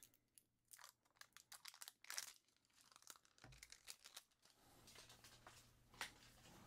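Near silence broken by faint, scattered clicks and crinkles of small handling noises, as a small lidded jar is set down on a plastic cutting mat.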